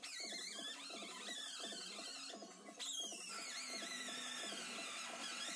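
Quiet instrumental background music with a steady, quick plucked-string rhythm.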